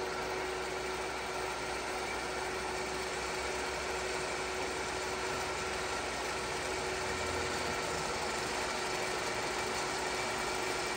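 TOS FA4V vertical milling machine running its cross-travel power feed, the saddle traversing slowly: a steady motor and gearbox hum with one constant tone.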